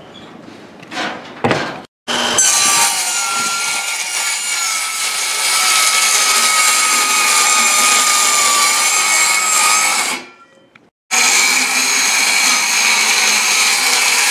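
Handheld circular saw cutting across a sheet of plywood, running steadily under load with a high whine over the noise of the blade in the wood. The cutting stops about ten seconds in and resumes a second later.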